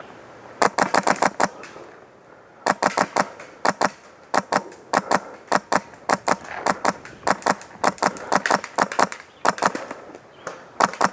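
Airsoft gun firing in rapid bursts of sharp clicks, about eight to ten shots a second, with short pauses between strings of shots.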